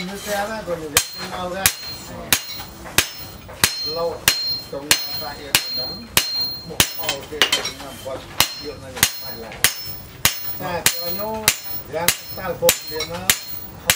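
Steady hand-hammer blows on a red-hot steel knife blade over a steel post anvil, about one every half second. Each strike is a sharp metallic clank with a short ring as the blade is forged out.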